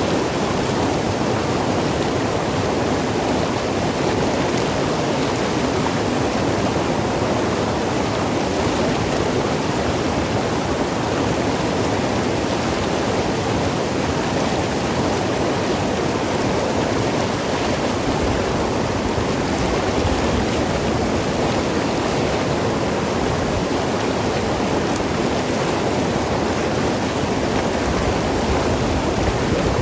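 Mountain river flowing and gurgling over rocks: a steady, even rush of water with no breaks.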